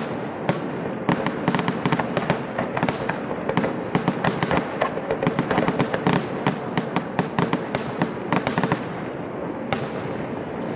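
Fireworks display crackling: a dense run of rapid pops and cracks that thins out briefly near the end.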